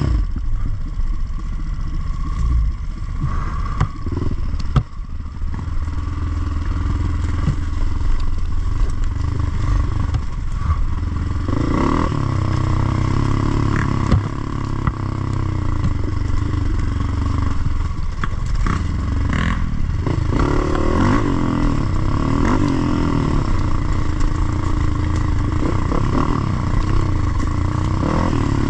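Dirt bike engine running under load on a trail, its revs rising and falling as the throttle is worked. Occasional knocks and clatter come from the bike over rough ground.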